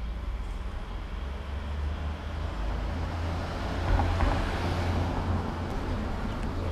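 A road vehicle passing by, its noise swelling to its loudest about four seconds in and then fading, over a steady low rumble.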